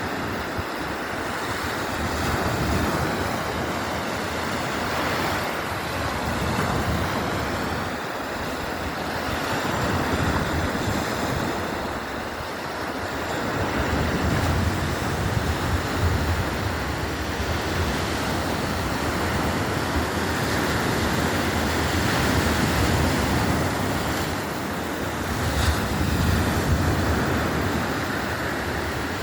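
Black Sea waves breaking and washing on the shore, swelling and easing every few seconds.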